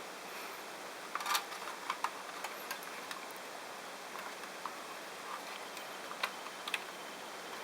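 Scattered light clicks and taps, irregular and a second or so apart, over a steady hiss.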